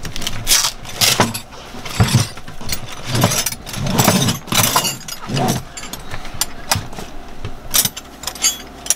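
Metal wrenches clinking and clattering as a roll of wrenches is handled and laid out, with irregular sharp clinks and some rustling.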